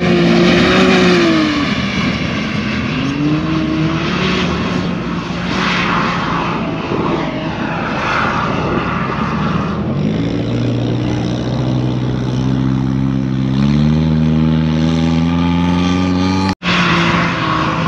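Off-road vehicle engines running on sand dunes: a steady engine drone with a few short pitch swoops in the first seconds, then the engine revving up with steadily rising pitch from about ten seconds in. The sound breaks off for an instant near the end.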